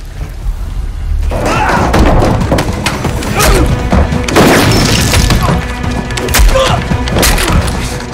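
Fight-scene soundtrack: a low rumble, then from about a second in, a rapid string of punches, thuds and crashes with men's grunts and shouts over dramatic music.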